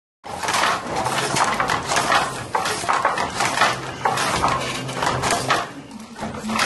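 Wooden beater of a Moroccan hand loom being worked by hand against the weft, giving a quick, irregular run of wooden knocks and rattles.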